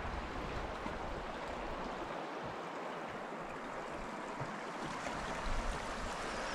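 Small brook running: a steady, even rush of flowing water.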